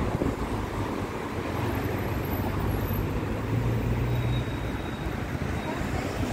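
Road traffic noise from slow, congested city traffic: many car engines running and tyres rolling as a steady rumble. A low engine hum grows louder for about a second past the middle.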